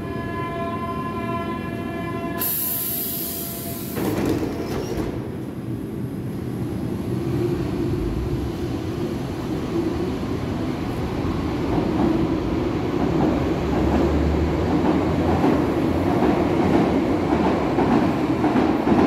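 A Berlin U-Bahn train pulling out of the station. A steady tone sounds for about two seconds, followed by a short hiss and a knock as the train moves off. After that comes the rumble of wheels and motors, growing louder as the train accelerates past.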